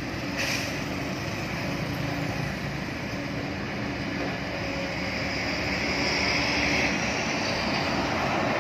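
Heavy diesel engines running steadily with road traffic going by. A truck approaches and grows louder over the last few seconds. A brief hiss sounds about half a second in.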